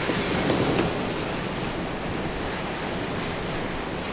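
Storm waves breaking and strong wind, heard as a steady rush of noise that is a little louder in the first second.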